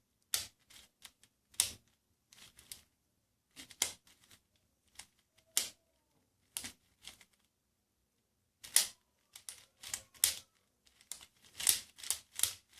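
MoYu Aosu 4x4x4 speed cube's plastic layers clicking and clacking as they are turned, irregular sharp clicks, some single and some in quick clusters. The turns catch and lock in one direction, which the owner cannot tell is normal or a defective piece.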